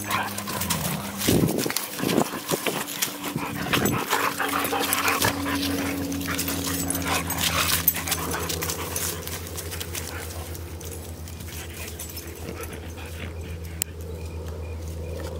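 A husky and a pit bull-type dog play-fighting, with dog whimpers and yips and scuffling, busiest in the first few seconds. A steady low drone runs under it from about a third of the way in.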